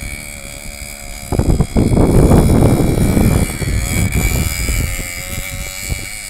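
Simson moped's two-stroke single-cylinder engine running under way, growing loud as it passes close about a second in, then fading as it rides off.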